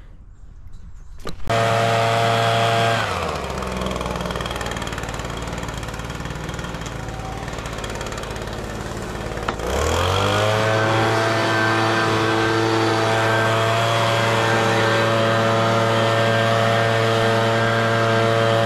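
Gas-powered handheld leaf blower: its engine revs high, drops to idle about three seconds in, then revs back up about ten seconds in and holds steady at full throttle while blowing sawdust.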